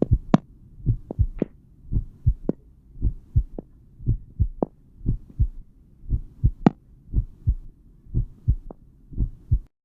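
A recorded heartbeat as heard through a stethoscope: the lub-dub of the first and second heart sounds, repeating at about one beat a second over a faint low rumble. It stops just before the end.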